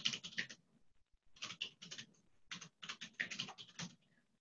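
Typing on a computer keyboard: runs of quick keystrokes, with a short pause about a second in, as a terminal command is typed.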